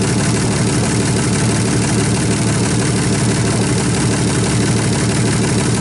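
Alfa Romeo 3.0 V6 swapped into a VAZ 2101, idling steadily and loudly with no revs.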